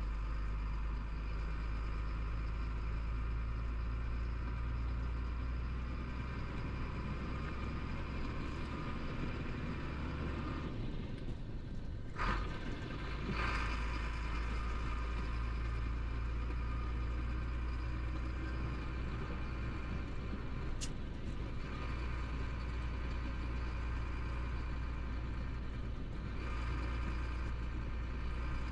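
Chenglong 375 truck's diesel engine running steadily, heard from inside the cab while driving. Near the middle the engine note dips briefly, with a sharp click and then a short hiss.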